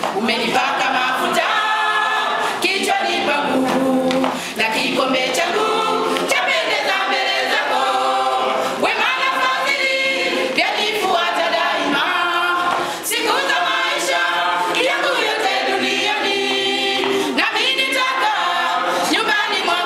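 Church choir, mostly women's voices, singing a gospel song together a cappella, continuously and fairly loudly.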